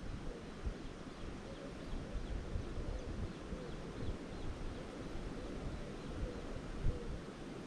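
Outdoor ambience on the water around an inflatable drop-stitch kayak: wind buffeting the microphone and water sounds, with faint short calls repeating about twice a second.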